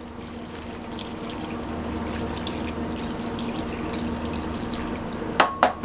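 Thin brown gravy being poured into a slow cooker: a steady splashing pour that grows slowly louder, then two sharp clicks near the end.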